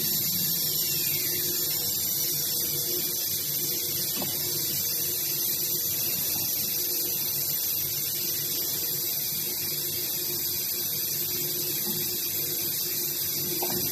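CNC machine running steadily: a strong high hiss over a steady hum.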